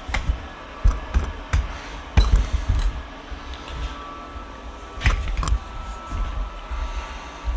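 Irregular knocks, clunks and low thumps of objects being handled and set down in a workshop, with a few sharper clicks.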